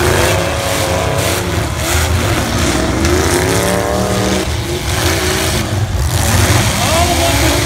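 Demolition derby cars' engines running loud and revving as the cars push into one another, with the pitch rising and falling in the middle.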